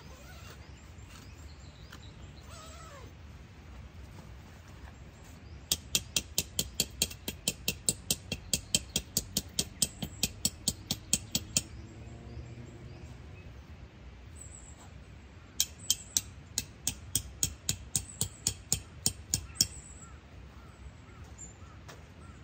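Tent pegs being hammered into the ground with a peg hammer: two runs of quick, sharp, evenly spaced strikes, about four a second, the first lasting about six seconds and the second, after a pause of a few seconds, about four.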